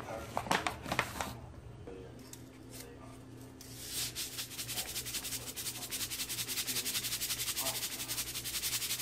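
Salt pouring from a canister into a bowl of flour: a steady, rapid grainy patter that starts about four seconds in, after a few light knocks of handling at the start.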